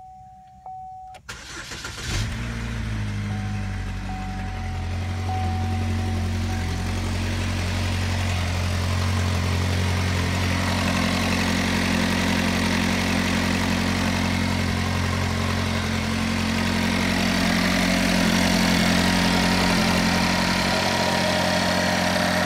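A short chime, then about two seconds in the 2.4 L Ecotec four-cylinder of a 2013 Chevy Equinox starts and keeps running steadily. Over the engine runs an exhaust-like noise from a cracked exhaust manifold, the kind that is heard only in the first seconds after start-up.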